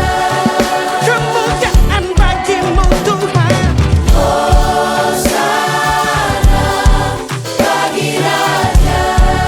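A choir singing a gospel worship song in harmony, backed by a full band with drums, bass and keyboards. The drums keep a steady beat under the voices.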